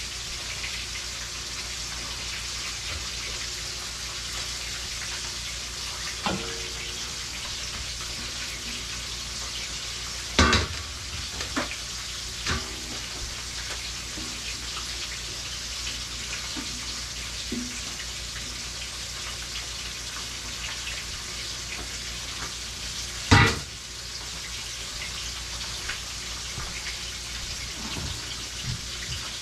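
Fish frying in hot oil in a pan: a steady sizzle, with a few sharp knocks, the two loudest about ten and twenty-three seconds in.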